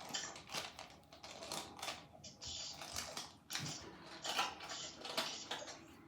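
Irregular splashing and squelching of bathwater as foam squishy toys are squeezed and washed, in a run of short uneven bursts.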